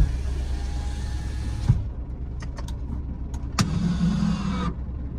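Truck cab's electric power window running and shutting with a knock about two seconds in, over the steady low hum of the idling truck engine; a few light clicks follow, then another short whir about a second before the end.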